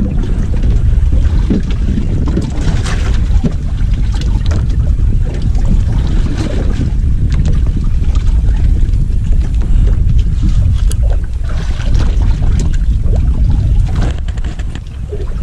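Wind buffeting the microphone aboard a small fishing boat, a heavy steady rumble, with scattered light knocks and taps throughout.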